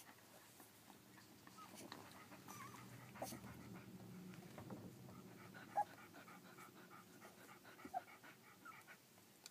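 Faint sounds of a collie mother and her two-week-old puppies: quick, rhythmic dog panting, with two short, high squeaks from the puppies about six and eight seconds in.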